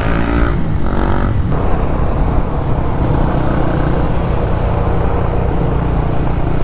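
Honda CB150R motorcycle's single-cylinder engine running while riding, with wind and road noise on the rider's camera mic. The engine's pitch lines are clear for about the first second and a half, then a steady rush of wind noise takes over.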